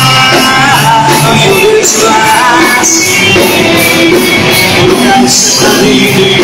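Live rock band playing loudly: electric guitars and a drum kit, with cymbals struck about twice a second under a wavering melody line.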